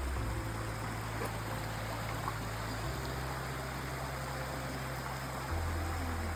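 Creek water running steadily, with low background music under it whose bass note changes twice.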